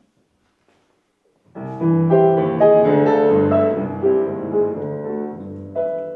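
Grand piano playing the introduction to a song, starting about a second and a half in after near silence, with held chords.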